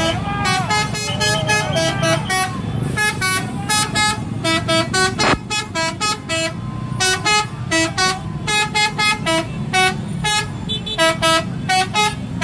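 A multi-tone vehicle horn sounding rapid short toots, several a second, jumping between pitches in a tune-like pattern, over a crowd's voices. A single sharp knock comes about five seconds in.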